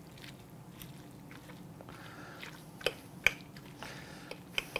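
Two forks shredding slow-cooked pork shoulder on a glazed platter: soft tearing of the tender meat, with a few sharp clinks of the forks against the platter, the loudest about three seconds in and two more near the end.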